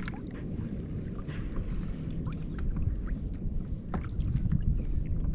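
Low wind rumble on the microphone and water moving against a fishing kayak's hull, with scattered light clicks and knocks.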